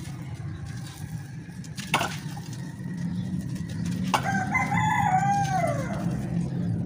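A rooster crows once, about four seconds in: a single arching call that falls away at its end. Before it, dry clay crumbles in the hands with a sharp crack about two seconds in, over a steady low hum.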